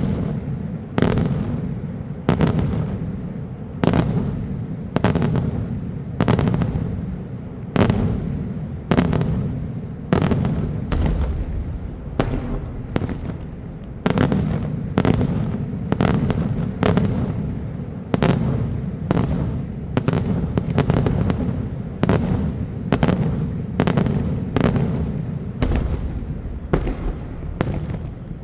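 Daytime fireworks display: a steady string of loud aerial shell bursts, roughly one bang a second, quickening to about two a second in the second half, each bang trailing into a low rumbling echo.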